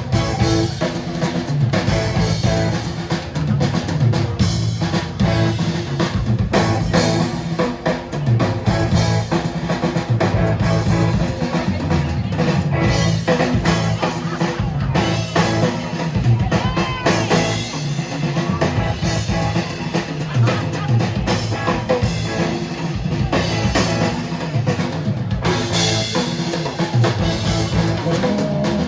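A live band playing rock music: drum kit with a steady bass-drum beat, and guitar.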